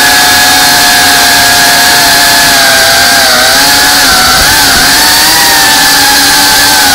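FPV quadcopter's brushless motors and propellers whining loudly and steadily, the pitch dipping and wavering together around the middle as the throttle changes, heard close up from the drone's own camera.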